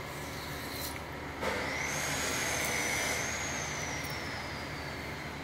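A loud hiss starting suddenly, carrying a thin high whistle that slides slowly down in pitch and fades away, over a steady low hum.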